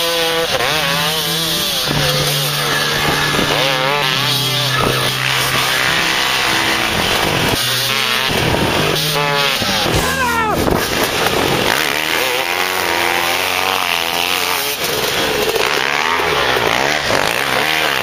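Dirt bike engines revving hard again and again, the pitch rising and falling as the bikes slide through loose sand turns.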